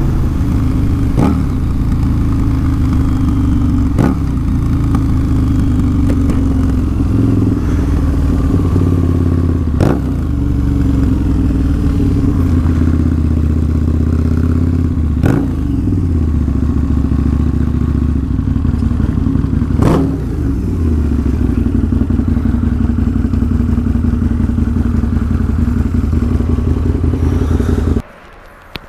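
Harley-Davidson V-Rod's V-twin engine running as the motorcycle rides and then slows, its pitch shifting with the throttle, with a few short knocks along the way. The engine is shut off suddenly near the end.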